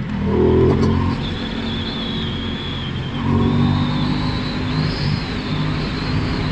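Motorcycle engine running under way, revving up about half a second in and again about three seconds in.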